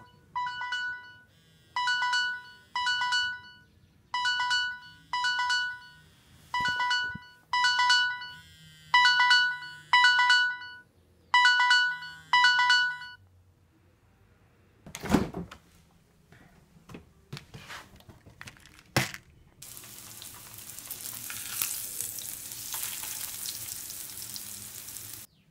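Mobile phone alarm playing a beeping tone pattern, repeated about once a second, that stops about 13 seconds in. A few knocks follow, then food sizzling in a frying pan.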